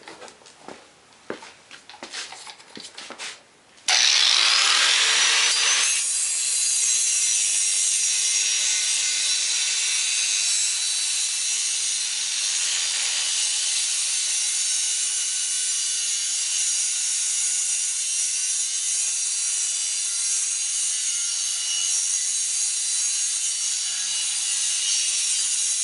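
Angle grinder with a cut-off wheel cutting through square steel tube. After a few light knocks, it bites in suddenly about four seconds in and cuts with a steady, high-pitched hiss.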